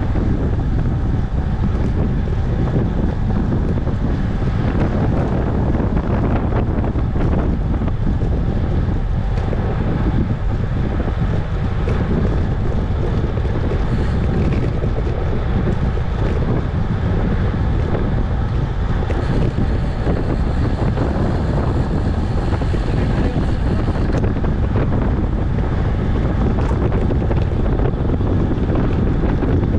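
Wind buffeting the microphone of a camera riding on a moving road bike: a steady, loud low rumble.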